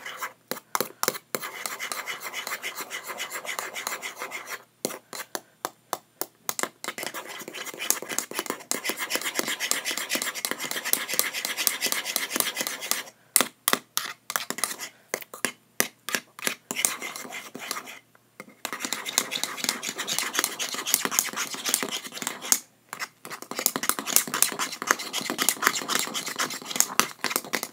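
Slime mixture being stirred in a bowl: continuous rapid scraping with many sticky clicks. It stops briefly about five seconds in, again around thirteen and eighteen seconds, and near twenty-three seconds.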